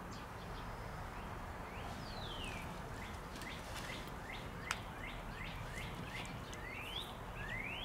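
A songbird singing: one falling whistled note, then a run of short rising notes about three a second, ending in two longer rising sweeps, over steady outdoor background noise. A single sharp click about halfway through.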